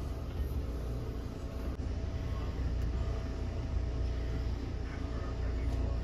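A steady low rumble, the loudest sound, with a few faint metal clicks of a lock pick being worked in the keyway of a doorknob lock.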